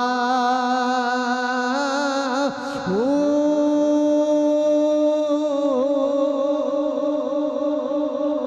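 A man singing long, drawn-out notes of a Punjabi devotional verse, the voice wavering on each held note. About two and a half seconds in, it breaks and slides down, then settles on another long held note.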